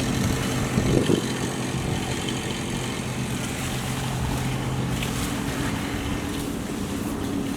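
A motor running steadily with a low hum, its tone shifting higher around six seconds in, with a short thump about a second in.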